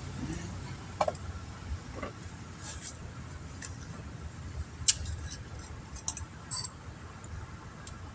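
Scattered light clicks and taps of small hand tools and patch-kit items being handled, the sharpest about five seconds in, over a steady low rumble.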